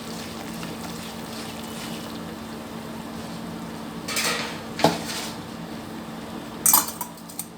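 Hot water being ladled into a kadai of wheat flour roasted in ghee, hissing briefly about four seconds in, with metal clinks of ladle and vessel against the pan. A steady low hum runs underneath.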